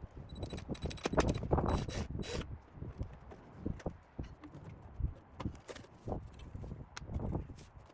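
Irregular knocks and clunks of the wooden antique egg incubator and its parts being handled, a quick cluster of louder knocks early, then scattered single knocks.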